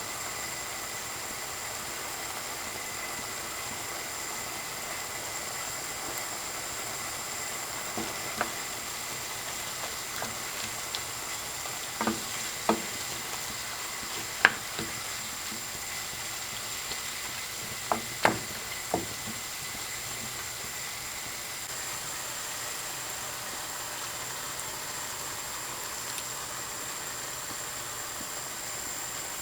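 Food sizzling steadily in a frying pan, with a utensil knocking against the pan in a series of short clicks through the middle, the loudest about fourteen seconds in.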